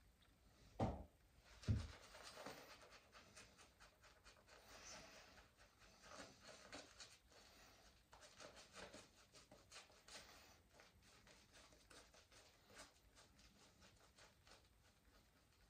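Faint, scratchy strokes of a wet shave at the face, coming in short runs, after two soft thumps about a second in.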